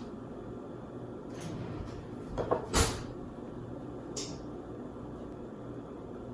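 A kitchen cupboard door shutting, with a loud double knock about two and a half seconds in, a fainter knock before it and a light click after.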